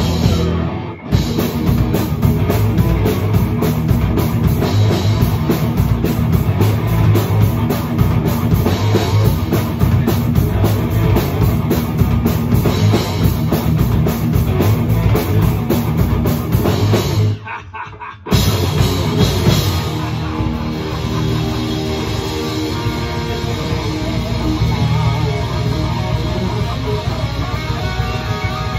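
Heavy rock music with a drum kit and guitars. It cuts out briefly about two-thirds of the way through, then comes back as a lighter, guitar-led passage.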